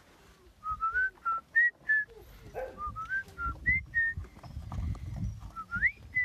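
A person whistling a run of short, clear notes that step up and down in pitch, with a quick upward glide near the end, calling puppies out of a wooden dog house. Under it come light thumps and rustling as the puppies scramble out over the doorway and the straw.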